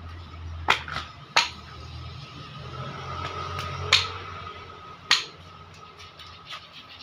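Sharp metal clicks, four of them a second or so apart, as a piston and connecting rod for a TD27 diesel engine are handled and fitted together, over a steady low hum.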